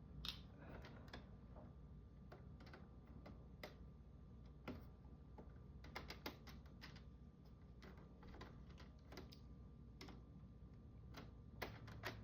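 Faint, irregular small clicks and taps of a screwdriver working the screws on a Roomba's plastic housing.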